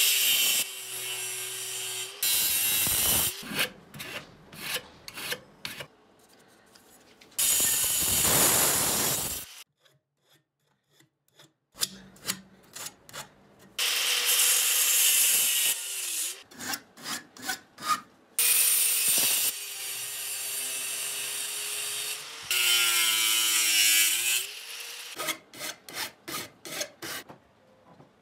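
Angle grinder with a thin cutting disc cutting through aluminium angle profile in several loud bursts, its motor whine falling as it spins down between cuts. Between cuts come short clicks and knocks.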